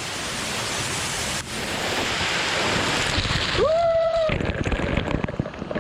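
Steady rush of a waterfall pouring into a pool, with one short, held shout from a person a little past halfway.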